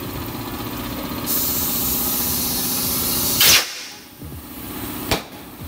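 Compressed air hissing from a tire inflator chuck as a new tire on an alloy mag wheel is inflated, over a steady low machine hum. The hiss starts about a second in and ends in a short, louder blast of air about three and a half seconds in. A sharp click comes near the end.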